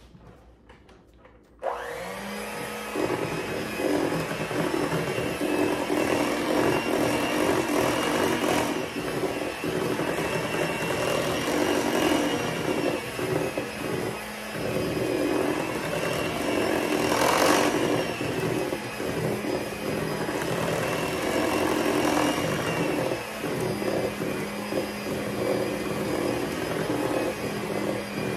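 Electric hand mixer switched on about two seconds in and running steadily at a constant speed, its beaters whipping cake batter in a stainless steel bowl.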